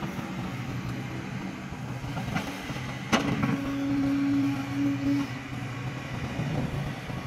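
Kobelco hydraulic excavator's diesel engine running steadily as it swings and digs, with a sharp knock about three seconds in as the bucket goes into the pit. The engine then works under load for about two seconds, a steady drone rising in level before easing off.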